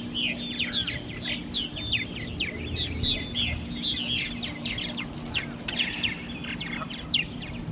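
Many small birds chirping busily, short quick overlapping notes several a second, over a steady low hum.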